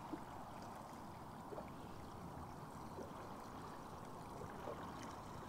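Faint water lapping against the hull of a small boat: a low, steady wash with a few soft knocks.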